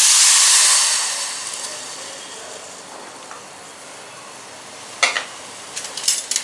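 Water poured from a vessel onto lumps of jaggery in an aluminium saucepan: a loud splashing pour that fades away over the first two seconds. Then a faint steady hiss, and a few light clicks near the end.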